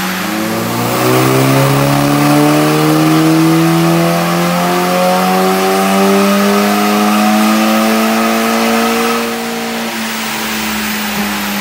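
Car engine making a full-throttle pull on a rolling-road dyno. The revs climb slowly and evenly under load for about nine seconds, then the driver lifts off and the engine note falls away.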